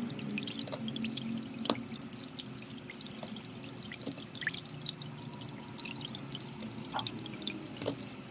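Soft background music of sustained low tones, with light clicks scattered through it.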